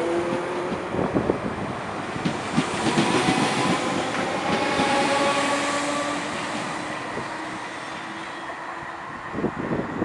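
Merseyrail electric multiple unit pulling away, its traction motors whining in pitch that rises slowly as it picks up speed. In the first few seconds its wheels knock over rail joints. The sound fades after about six seconds, and a few more knocks come near the end.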